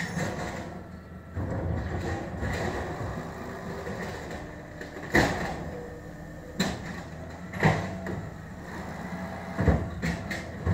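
Automated side-loader garbage truck idling with its hydraulic arm working, the engine and pump noise rising about a second and a half in as the arm lifts a wheeled trash cart over the hopper. In the second half come a series of sharp bangs as the cart is shaken empty against the hopper.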